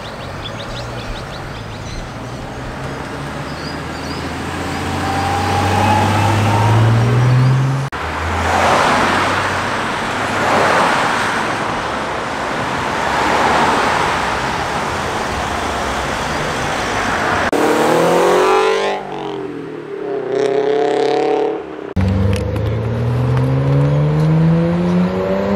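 Performance cars accelerating away one after another. First a Porsche 911 GT3 RS's flat-six climbs in pitch as it pulls away and rushes past. Then an engine revs up and down, and near the end a Nissan Skyline R34's engine note rises as it accelerates away.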